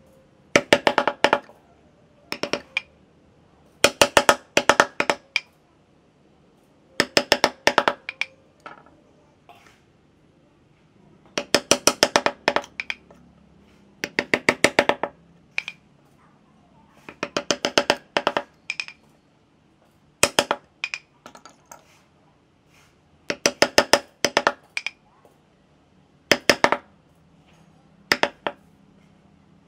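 Wooden mallet tapping a small carving chisel into a wood block: short bursts of several quick, sharp knocks, about every two to three seconds, with pauses between.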